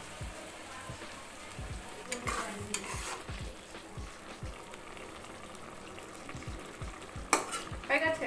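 Vegetable and mustard-paste curry sizzling in a wok while a flat metal spatula stirs it. The spatula scrapes the pan about two seconds in and again near the end.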